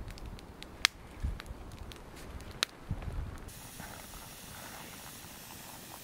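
Small wood campfire crackling, with a few sharp pops and soft crunches of snow while the fire is tended. After about three and a half seconds a steady hiss takes over.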